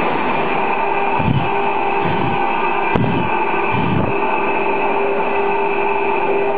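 Eight-head CNC wood router running, its spindles giving a steady whine of several held tones over the noise of the bits cutting into the wood. A few low thumps come in the first four seconds.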